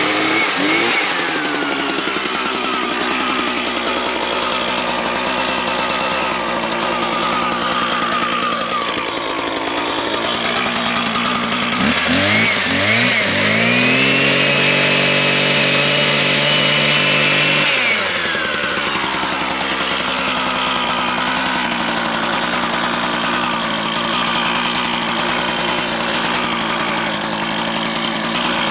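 Small engine running, revved up about twelve seconds in, held at high speed for several seconds, then let back down.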